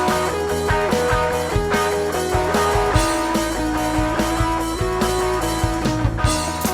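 A live rock band playing an instrumental passage between vocal lines, with electric guitar holding long notes over bass and steady drum hits.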